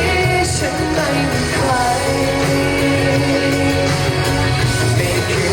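Live pop-rock band playing an instrumental passage of the song, with a sustained vocal-like line and gliding notes over a steady bass and drum backing.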